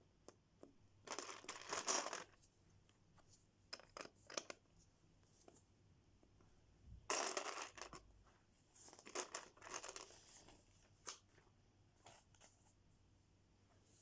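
Lego packaging being handled and opened: several short bursts of tearing and crinkling, with scattered light clicks of small plastic pieces in between.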